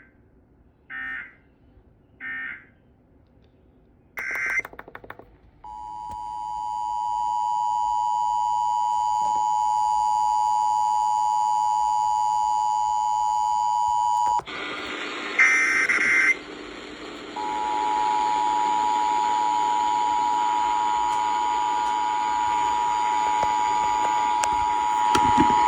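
Emergency Alert System tones. Three short warbling SAME data bursts (end-of-message) come first, then a further data burst, then the two-tone EAS attention signal holds steady for about nine seconds. Partway through, radio hiss sets in, another short data burst sounds, and the two-tone attention signal plays again for about eight seconds.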